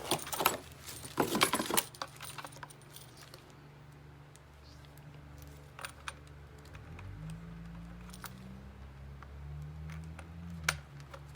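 Metal parts of a soldering station clinking and rattling as they are handled for about two seconds, then a low steady hum that rises a little in pitch and grows louder about seven seconds in, with a few scattered light clicks.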